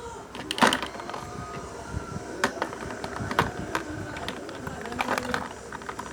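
Putty slime being squeezed and played with by hand, giving irregular sticky clicks and pops.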